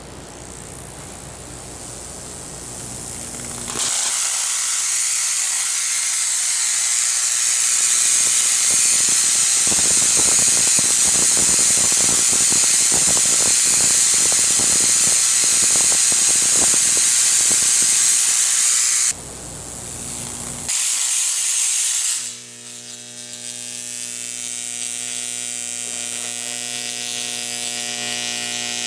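High-voltage arc from a 140 kV X-ray transformer, buzzing and crackling loudly across the electrode wires on top of the oil tank after the transformer hum rises over the first few seconds. The arc cuts out briefly about two-thirds of the way through, then comes back as a steadier buzzing arc over a mains hum.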